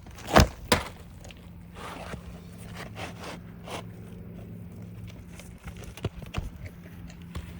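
Knocks and scrapes from handling and stepping on asphalt roof shingles: two sharp knocks about half a second in, then scattered lighter clicks and scrapes. A steady low hum runs underneath.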